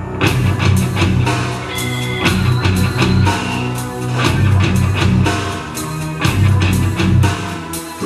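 Rock music with drum kit and guitar playing through the Sharp XL-HF201 mini hi-fi system's bookshelf speakers during a sound test, with strong bass and a steady drum beat.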